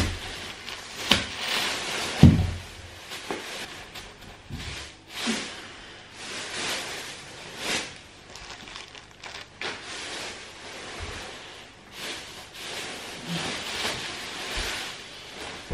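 Crinkling and rustling of plastic wrapping and packaging as flat-packed chair parts are unwrapped and handled, with scattered clicks and knocks, the loudest a knock a little over two seconds in.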